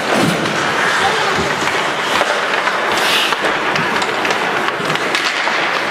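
Ice hockey in play heard from the arena: a steady crowd and arena noise, with skates scraping the ice and sharp clicks of sticks and puck, and a brief scraping hiss about three seconds in.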